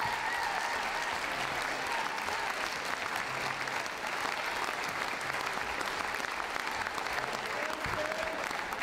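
Audience applauding steadily, a continuous wash of many hands clapping.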